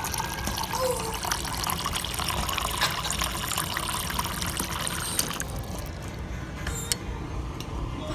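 Running water filling a container, a steady stream that stops about five and a half seconds in, followed by a few light clicks.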